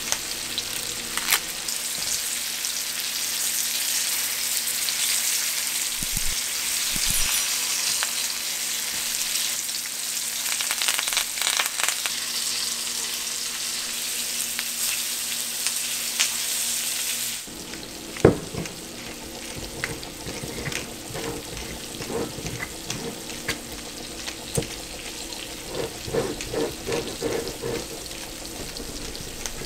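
Veal shanks sizzling in a stainless steel pan, a dense, steady frying hiss. About two-thirds of the way through the sizzle cuts off suddenly, giving way to quieter clicks and short creaks as a corkscrew is worked into a wine bottle's cork.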